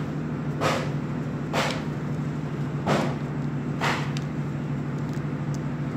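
A sheet of A4 paper being folded and pressed flat by hand: four short brushing swishes of hands sliding over the paper as it is creased, about one a second.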